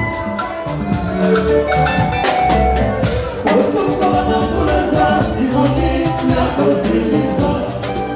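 Live Congolese band music played loud through stage speakers: a steady drum beat under bright melodic instruments, with a man singing into a microphone.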